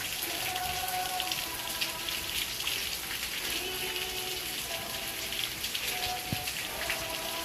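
Steady rain pattering, a dense even patter of fine drops, with faint held musical tones underneath.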